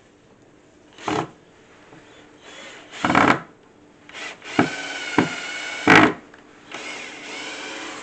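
Cordless drill boring a knob hole through a cabinet door. It runs in short bursts, then in two longer steady runs of about a second each, with the motor's whine held steady.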